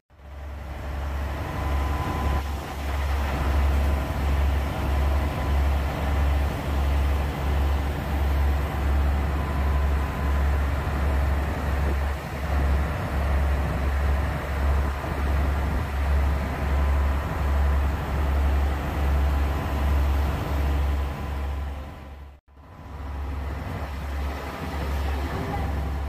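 A ferry's engine drones steadily, its deep rumble pulsing about twice a second, under a steady rush of wind and churned water. The sound breaks off for a moment near the end and then resumes.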